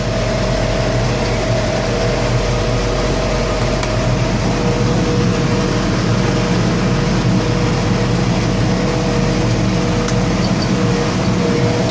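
New Holland T4.95 tractor's four-cylinder diesel engine running steadily at about 1300–1400 rpm in road travel, pulling easily with no strain.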